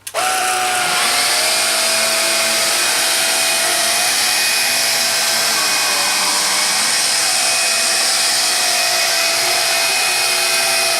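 Vax Air Cordless U86-AL-B upright vacuum cleaner switched on and running steadily, a strong hiss of rushing air with a steady motor whine over it. It starts abruptly at the beginning.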